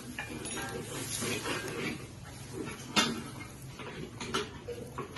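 Banana leaves rustling and crackling as they are folded and pressed around a bánh tét, with scattered light clicks and knocks against a metal tray; the sharpest knock comes about three seconds in.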